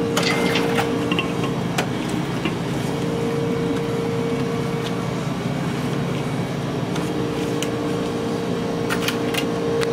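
Steady hum of a shop's machinery with knocks of items set on a checkout counter, and a short high beep from a barcode scanner near the start.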